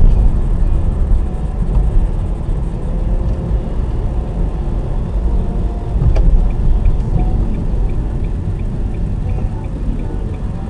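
Steady low rumble of road and engine noise inside a moving car, picked up by a dashcam microphone. About six seconds in there is a click, then an even ticking of a few ticks a second, like a turn-signal indicator as the car nears an intersection.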